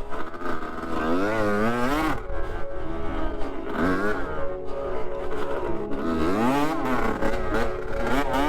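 Dirt bike engine revving up and down as it is ridden, its pitch rising and falling several times with the throttle, with background music underneath.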